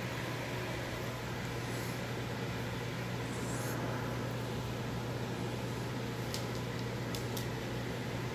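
A steady low machine hum over an even hiss, with a few light ticks about six to seven and a half seconds in.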